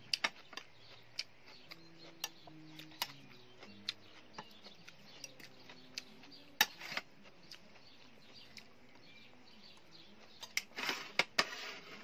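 Metal spoon clinking and scraping against plates in short, scattered knocks, the loudest about six and a half seconds in, with a cluster of close-up chewing and eating noises near the end.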